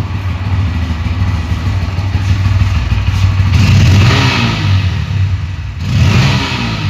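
Bajaj Pulsar N160 motorcycle's single-cylinder engine idling, blipped twice on the throttle: the revs rise and fall about three and a half seconds in and again near six seconds.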